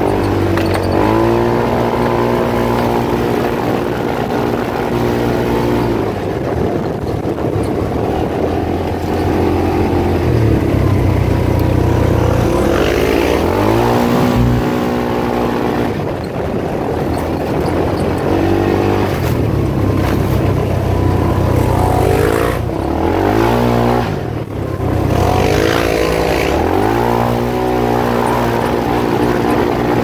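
Polaris RZR side-by-side's engine running under way, holding a steady pitch for stretches and revving up with the throttle several times, with road and wind noise over it.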